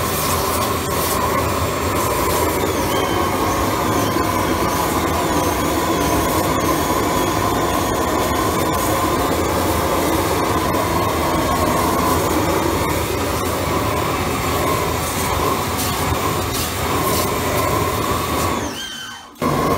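Pressure-washer steam cleaner in use: the rosebud torch heating the mono-tube boiler burns while the jet of steam and hot water sprays from the wand, a loud, steady rush. About a second before the end it drops out sharply for a moment and then starts again.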